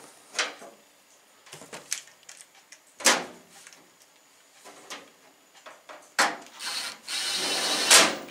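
A few sharp metallic knocks and clatters as a sheet-metal cover plate is fitted onto a microwave's metal casing, then a cordless screwdriver runs for about two seconds near the end, driving a screw through the cover into the casing.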